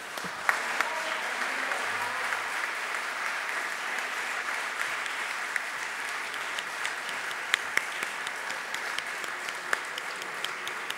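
Audience applauding at the end of a speech: a dense, steady patter of hand claps with a few sharper individual claps standing out, easing off slightly toward the end.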